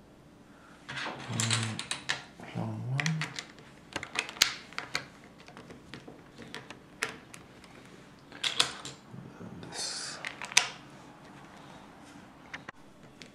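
Plastic Lego pieces clicking and rattling as plates are handled and pressed onto a baseplate: irregular sharp clicks with short rustles of pieces being sorted.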